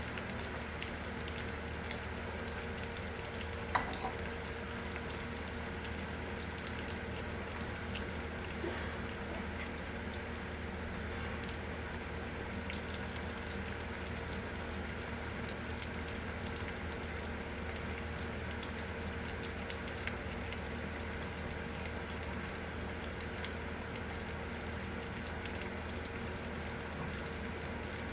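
Green peas deep-frying in hot oil: a steady sizzle with scattered small crackles, and a single sharp click about four seconds in.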